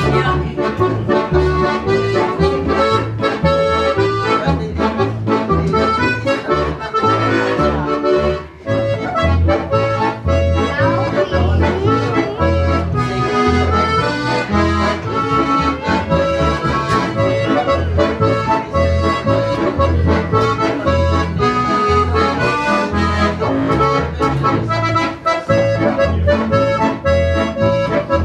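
Two diatonic button accordions (Styrian harmonicas) playing a lively folk tune together over a steady bass beat, with a brief break about eight and a half seconds in.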